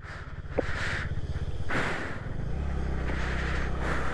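Scooter engine running under way at a low road speed, with a steady low drone. About two and a half seconds in it gets louder and fuller as the throttle opens and the scooter picks up speed.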